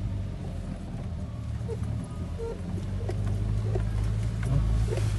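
A four-wheel-drive vehicle's engine running steadily, heard from inside the cabin as it drives along a rough, muddy track. Scattered knocks and rattles come from the bumpy ground, and the engine gets louder in the second half.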